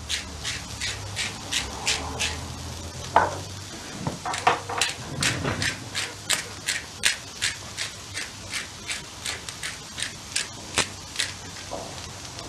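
Hand-twisted salt and pepper grinder cranked over the griddle, a rapid run of crisp grinding clicks about three a second, over the faint sizzle of peppers and onions frying on a hot flat-top grill.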